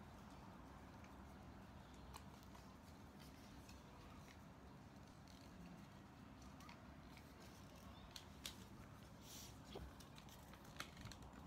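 Faint rustling and crinkling of white paper being folded and creased by hand into an envelope, near silence otherwise. A few crisper paper clicks and a brief rustle come in the last few seconds.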